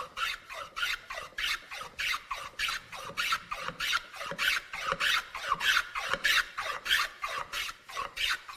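Hand plane cutting along a wooden edge in quick, short, repeated strokes, about three a second, each a brief shaving hiss.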